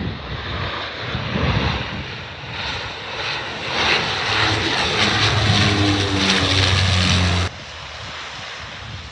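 Twin-engine turboprop airliner flying low on approach, its engines and propellers making a loud roar with a steady low hum that grows louder as it passes close. The sound cuts off suddenly about seven and a half seconds in, leaving a quieter background hiss.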